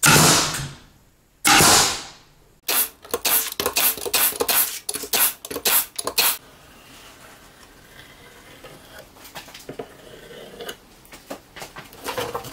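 Pneumatic nail gun, fed by an air hose, driving a quick run of sharp shots into plywood edges over about three seconds, after two louder noise bursts of about a second each at the start. Light handling clicks follow.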